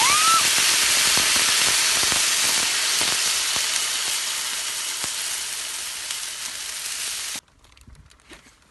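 Meat frying on a hot pan, a loud, steady sizzle that eases slowly and then stops abruptly near the end. A brief rising squeak sounds at the very start.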